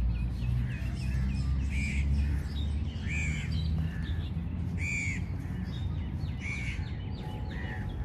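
Crows cawing over and over, a harsh call every second or so, with smaller birds chirping in between and a low rumble underneath.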